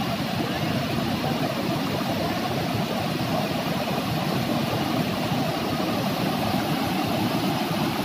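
Steady roar of a waterfall, several cascades pouring over rock into a plunge pool, deep and even with no change in level.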